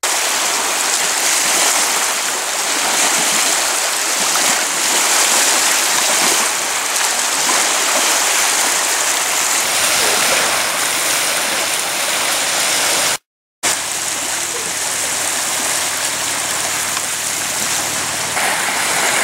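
Small lake waves washing onto the beach, a steady rushing and fizzing of water, broken by a split second of silence about thirteen seconds in.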